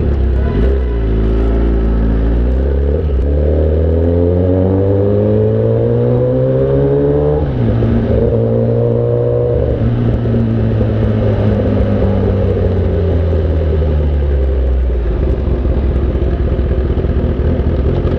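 Inline-four superbike engine accelerating, its pitch rising steadily for several seconds, then dropping sharply at an upshift about seven seconds in. It holds briefly, then falls away slowly as the bike slows, and settles to a steady lower run near the end.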